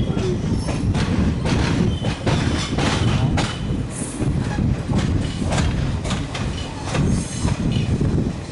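Passenger train wheels clattering over rail joints and points in an uneven run of clacks over a steady rolling rumble, with brief high-pitched wheel squeals about four seconds in and again near the end.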